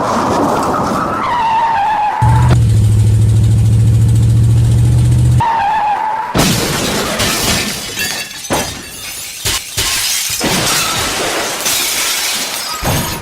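Dubbed-in car crash sound effects: tyres squealing, falling in pitch, in the first two seconds, then a steady low drone, then a second short squeal about six seconds in. A long run of crashing and shattering glass follows to the end.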